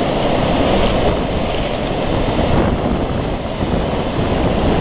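Wind rushing over the microphone together with sea surf, a steady, loud noise with a heavy, uneven low rumble.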